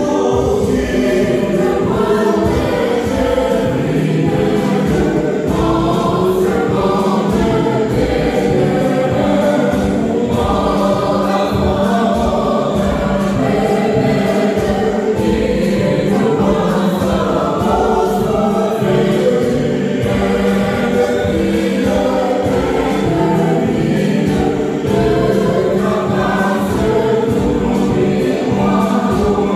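A mixed church choir singing a gospel song in harmony, over a steady beat in the low end.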